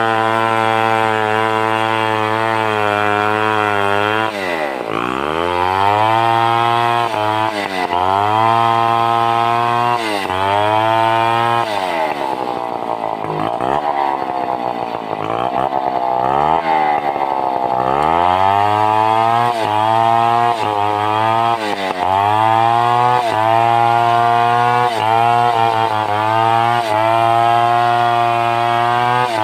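Stihl 070 chainsaw's large single-cylinder two-stroke engine running at speed, steady for the first few seconds. Then its pitch repeatedly sags and recovers as the chain takes load cutting through timber, with the roughest bogging in the middle.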